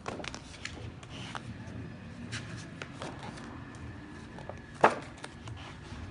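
Stiff pages of a wallpaper sample book being turned and rubbed, a light rustling with small clicks, and one sharp knock about five seconds in.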